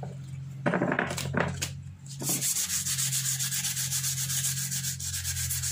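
Small piece of sandpaper rubbed by hand over the weathered plastic of a monoblock chair seat. A few separate strokes come first, then from about two seconds in it settles into a fast, even scrubbing rhythm.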